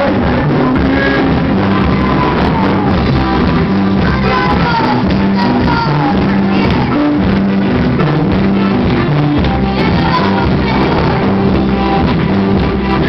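Live band music: a drum kit and keyboard playing a song with a moving bass line, and voices singing over it.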